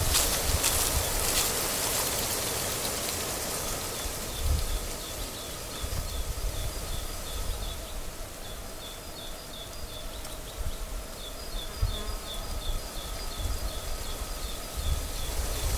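Wind gusting on the microphone with a steady outdoor hiss, while a high, rapid chirping repeats about four times a second from about four seconds in, in runs with short breaks.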